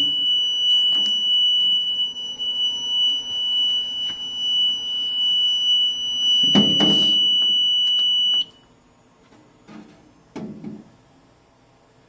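Mircom FX-2000 fire alarm panel's internal buzzer sounding one steady high-pitched tone while the freshly powered-up panel runs its initial self-checks, then cutting off suddenly about eight and a half seconds in. A few knocks from handling the panel's keypad, the loudest about six and a half seconds in.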